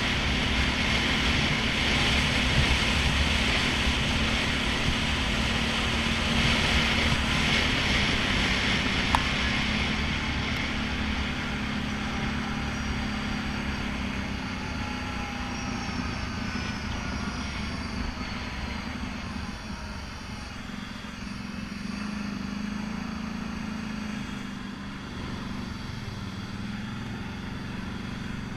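ATV engine running steadily on a gravel trail, with wind and gravel noise over it. The sound eases from about ten seconds in and drops further near the end as the machine slows.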